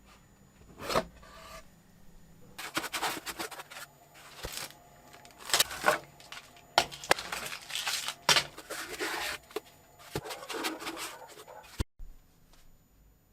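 Hands handling parts and packaging: irregular rubbing and scraping with several sharp clicks and knocks, cutting off abruptly about twelve seconds in.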